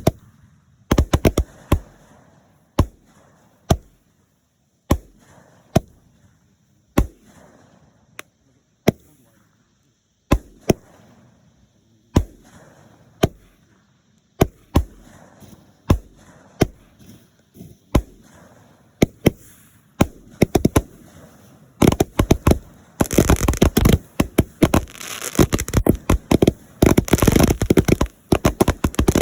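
Fireworks going off: single sharp bangs roughly a second apart, building near the end into a rapid, continuous string of bangs and crackling.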